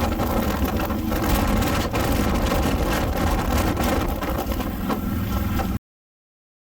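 Harley-Davidson motorcycle running at a steady pace while being ridden, its engine note mixed with road and wind noise. The sound cuts off abruptly near the end.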